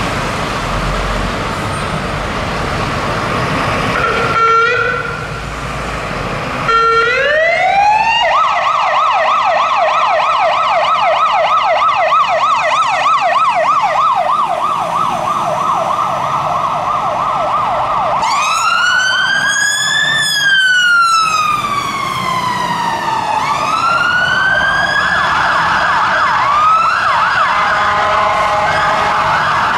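London Fire Brigade Mercedes-Benz Atego fire engine's electronic siren as it turns out to an emergency call: two short horn blasts, then a rising tone that breaks into a fast yelp, then a slow wail rising and falling. Near the end a second siren overlaps it briefly, over engine and traffic noise.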